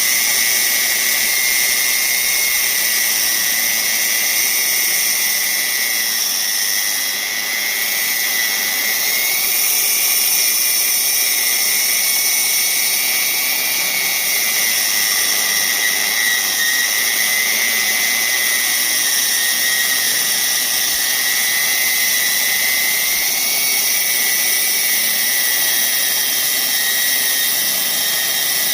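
Electric core drill running steadily under power, a continuous high whine that wavers slightly in pitch over a hissy motor noise.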